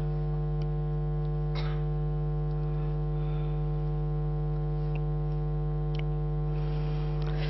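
Steady electrical mains hum with a buzz of many overtones, carried through the microphone and sound system, with a few faint ticks.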